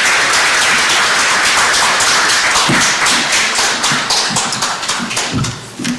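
An audience applauding: many hands clapping in a dense patter that thins out near the end.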